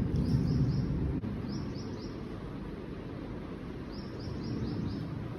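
A small bird chirping in three short runs of quick, high, downward-sliding notes over steady background noise. A low rumble fades out in the first second.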